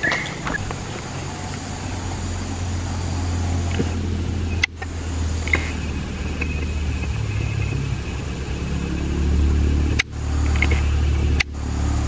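Low, steady engine hum that grows louder about three-quarters of the way through, broken by a few sharp clicks.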